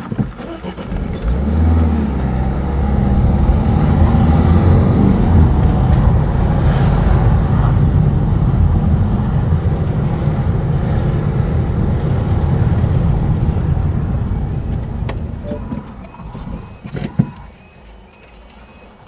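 Car engine and tyre noise heard from inside the car: a steady low drone that builds as it pulls away, then dies down as the car slows and stops about 16 s in. Toward the end a faint level crossing warning alarm is heard, a tone stepping back and forth between two pitches, with a single sharp knock just before it.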